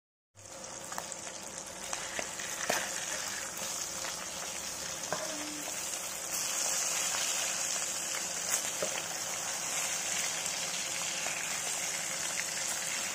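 Pieces of fish frying in hot mustard oil in a pan: a steady, dense sizzle that starts about half a second in, with a few light clicks.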